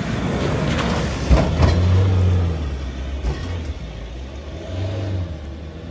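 Ford Ranger Raptor pickup's engine pulling under load off-road, the revs swelling and easing twice, with a couple of sharp knocks about a second and a half in.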